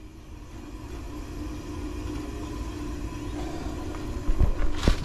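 The compressor of a 1994 Goodman 5-ton heat pump is running with a steady hum and low rumble. This compressor had been condemned as shorted, but it runs once its wires are hooked up. Near the end there are a couple of sharp knocks.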